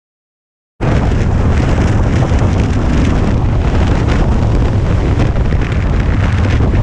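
Silent at first, then heavy wind buffeting on the microphone over the steady low running of a Harley-Davidson Road King's V-twin engine at road speed.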